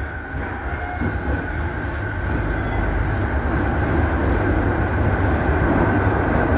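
Electric commuter train running through a tunnel on jointed, not long-welded rail, heard from the driver's cab. A steady wheel-and-rail rumble grows louder, with a few faint rail-joint clicks and a steady high tone over it.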